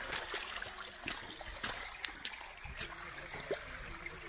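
Shallow creek water running and trickling, broken by scattered small splashes and ticks.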